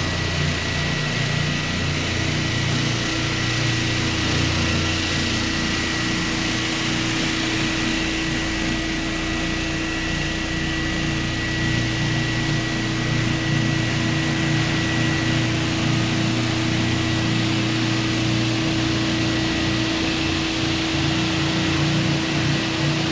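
Floor sanding machine running steadily: an even machine noise with a constant hum and a thin high whine.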